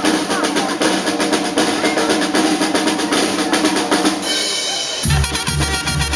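Tamborazo band playing: snare-drum (tarola) rolls and bass drum (tambora) strikes under sustained trumpet and trombone notes. About five seconds in, the sound changes abruptly and a deep, heavy low part comes in.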